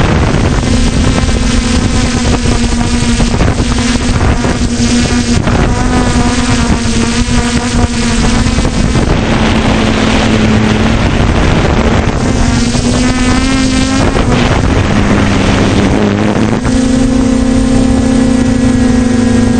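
Quadcopter drone's motors and propellers humming at a steady pitch that shifts slightly now and then, with wind rushing over the microphone.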